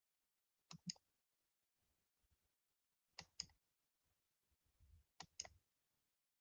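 Three double-clicks of a computer mouse, about two seconds apart, over near silence.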